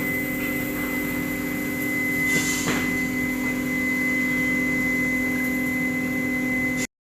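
Finger-joint woodworking machine running with a steady, even hum, with a brief swish about two and a half seconds in. The sound cuts out abruptly at the very end.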